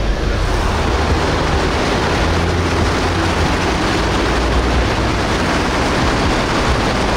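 Car driving through floodwater on the road: a steady, loud rush of water sprayed up by the tyres over the low rumble of the engine and road.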